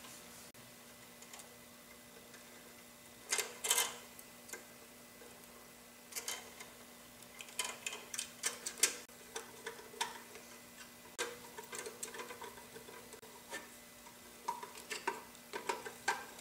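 Small clicks, taps and scrapes of hands fitting wires and terminal screws inside a metal magnetic motor starter box, in short scattered bursts that come thicker in the second half.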